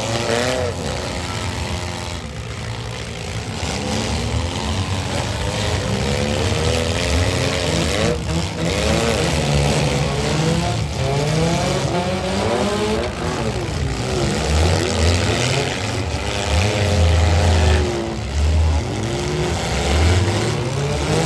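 Several compact demolition-derby cars' engines running and revving together, their pitches repeatedly rising and falling as the cars manoeuvre in the dirt arena.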